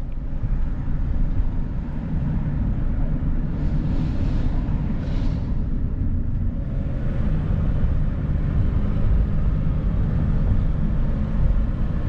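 Steady road and engine rumble heard inside a moving van's cab, with tyre and wind hiss over it. There are two short whooshes about four and five seconds in.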